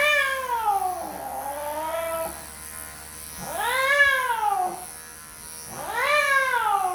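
An elderly longhaired cat yowling in three long, drawn-out cries, each rising then falling in pitch, over the steady buzz of electric grooming clippers. He is protesting at being handled and clipped, because his skin is very sensitive.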